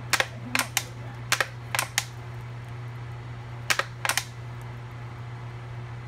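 Sharp clicks and crackles of a nearly empty plastic fish sauce bottle held upside down and squeezed to get the last of the sauce out, in a quick run in the first two seconds and a few more about two seconds later, over a steady low hum.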